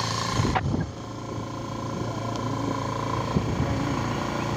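Motorcycle running along a road at speed, with engine and wind noise on the microphone; the sound dips about half a second in, then runs steady.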